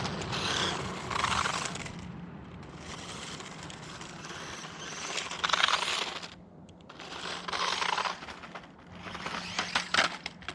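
Small 1:18 scale electric RC truck driven over rough, pine-cone-strewn ground on an over-volted 7.4 V battery, its plastic chassis and wheels rattling and clattering in surges a second or two long. A faint steady hum runs underneath.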